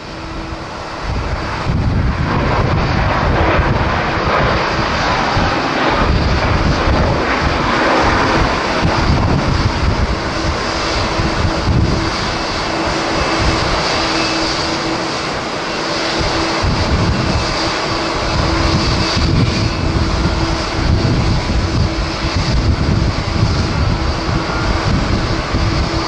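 Boeing 737-800 airliner's CFM56 jet engines running steadily as it rolls out after landing, with a steady hum over a wide rushing noise. Strong gusts of wind rumble unevenly on the microphone.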